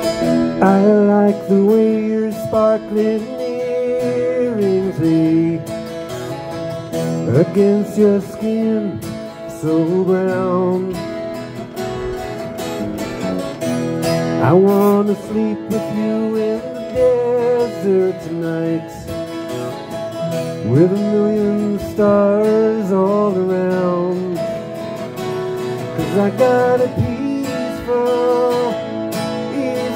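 Small band playing a mellow country-rock song live: strummed acoustic guitars with electric guitar, pitched lines sliding and bending above the chords.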